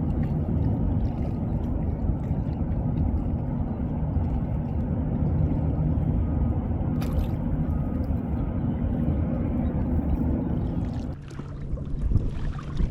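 Wind buffeting the microphone and water lapping around a kayak, a steady rough rush. It drops off about eleven seconds in, followed by a few short knocks near the end.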